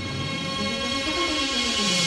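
Background score music: a held high chord over a slowly falling low line, with a hissing swell that builds through the second half.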